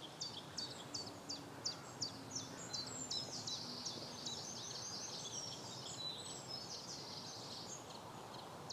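Small birds calling: a run of sharp, high notes, each dropping in pitch, about three a second. Around the middle they thicken into a busier jumble of calls, over a faint outdoor hiss.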